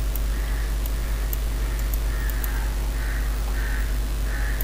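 A crow cawing several times in a row, short harsh calls spaced about half a second to a second apart, over a steady low electrical hum.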